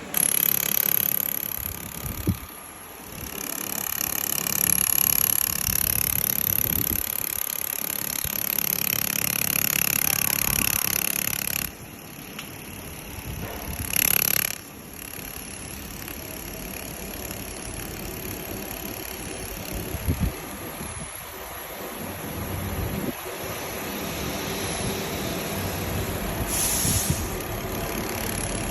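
Automatic 4-axis laser welding machine running, with a steady high whine and a layered mechanical whine that drops away about twelve seconds in. A brief loud hiss comes a couple of seconds later, over steady machine noise.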